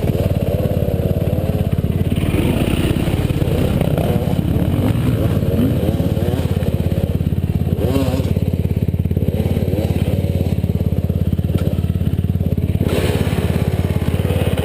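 Trail motorcycle engine idling steadily, with an even, fast firing pulse.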